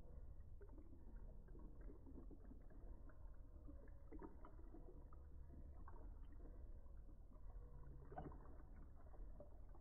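Faint sound of a thin stream of drink pouring into a tall glass of ice cubes, with scattered small clicks and crackles.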